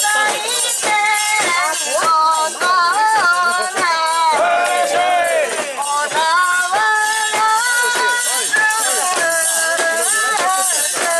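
Japanese festival music: a high melody of held notes that slide between pitches, over continuous jingling.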